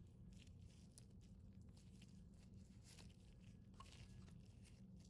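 Very faint squishing and crackling of clay slime being kneaded with a gloved hand, in short scattered clicks over a low steady hum.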